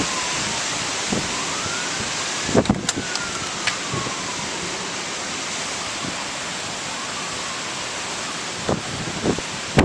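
Heavy wind-driven rain hissing steadily, with a siren wailing slowly up and down through it. A few gusts knock against the microphone around three seconds in and again near the end.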